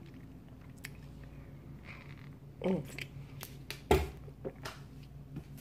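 A person drinking from a plastic water bottle to chase a mouthful of straight apple cider vinegar: quiet swallowing and clicks from handling the bottle, a short groan about two and a half seconds in, and a louder knock near four seconds.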